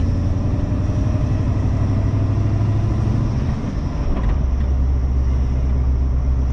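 LS1 V8 in a Nissan Patrol heard from inside the cabin while driving, a steady low drone through the quietened exhaust. A little past halfway the loudness dips briefly and the engine note drops lower as it shifts up into fourth gear. A faint steady belt squeal from the engine bay runs throughout.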